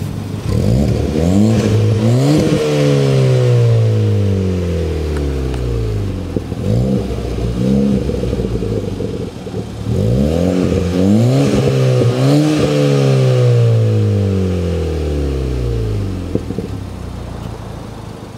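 2016 Ford Fiesta ST's turbocharged 1.6-litre four-cylinder, running through an FSWERKS aftermarket exhaust on a Stage 3 tune, revved in place from idle. It makes two long revs, each climbing quickly and then falling slowly back to idle, with two short blips between them.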